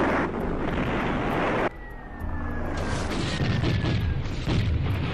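Battle sound effects: a loud rushing blast roar that cuts off abruptly under two seconds in, then a thin falling whistle over a run of deep explosion booms.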